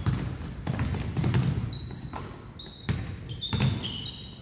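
A basketball bouncing on a hardwood gym floor as a player dribbles, a few sharp bounces, with short high sneaker squeaks and running footsteps in a large, echoing gym.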